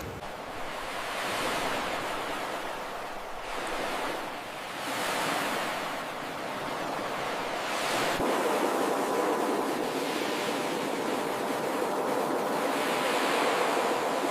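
Ocean surf: waves breaking and washing up the shore, the rush swelling and easing every few seconds.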